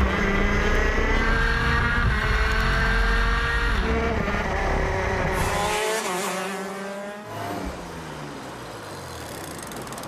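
Racing kart's two-stroke engine running hard at high revs. About six seconds in it becomes quieter and its pitch falls as the kart slows.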